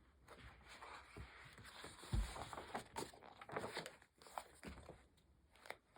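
Rustling and soft clicks of a picture book being handled as its pages are turned, with a low thump about two seconds in.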